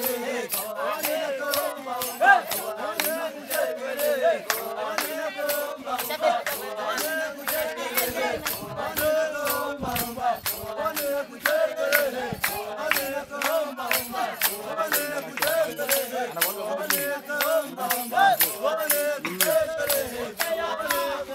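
A group of voices singing a chant-like song over a steady, fast rattling beat.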